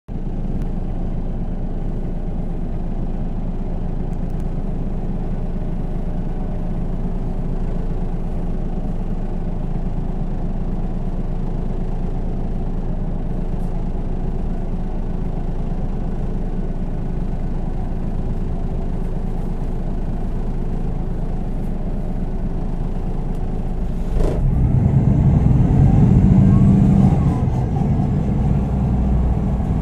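MAN NG 313 CNG articulated city bus, natural-gas engine with a Voith automatic gearbox, idling steadily. About 24 seconds in there is a knock, then the engine revs up louder with a rising whine.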